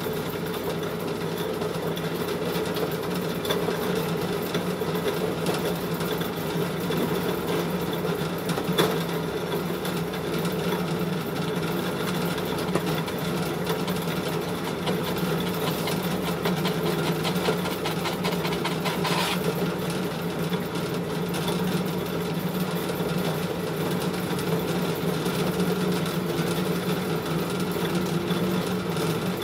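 Small animal-feed pellet mill running steadily, pressing a grain mix into pig-feed pellets. There is one brief knock about nine seconds in.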